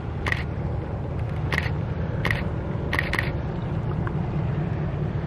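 Steady low rumble of the distant diesel locomotives crossing the bridge, with a camera shutter clicking several times over it, the last two close together.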